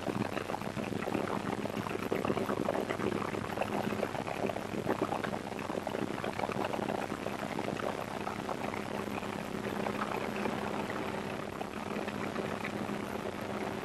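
Helicopter heard from inside its open cabin in flight: a steady rotor and engine hum under a constant rushing hiss of wind buffeting the microphone.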